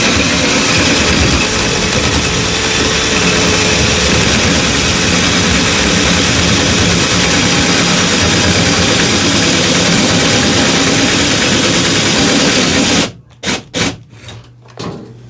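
Power drill boring a hole through a wooden door for a door lock, running steadily under load. The drill stops suddenly about 13 seconds in, followed by a few short spurts.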